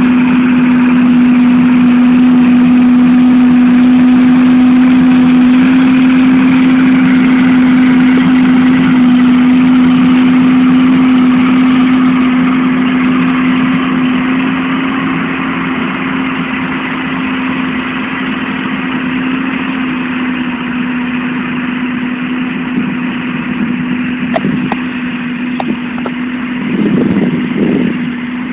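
John Deere 7920 tractor's six-cylinder turbo diesel engine running steadily under load while pulling a six-furrow plough, a constant drone at one held pitch. It eases off slightly about halfway, and a rough low rumble comes in near the end.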